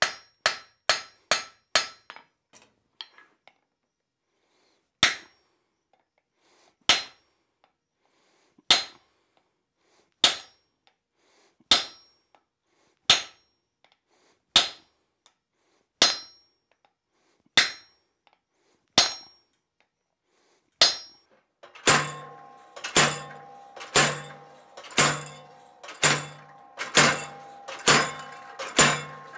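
Hand hammer blows on red-hot steel bar at the anvil. A quick run of strikes opens, then single blows come about every one and a half seconds. About three-quarters through, a steady run of strikes begins, a little over one a second, each leaving a ringing tone.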